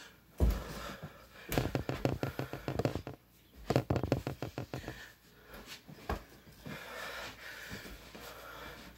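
A heavy thump on a bed, then two quick flurries of soft blows, several a second, and a later single thump: body landings and punches on a mattress and a large stuffed toy.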